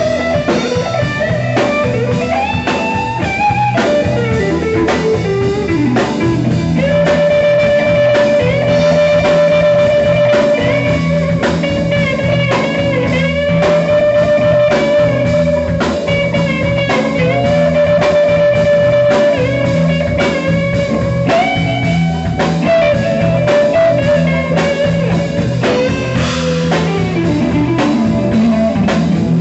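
Live blues band with an electric guitar lead of long held, bent notes over drums and bass, with a slow downward slide in pitch near the end.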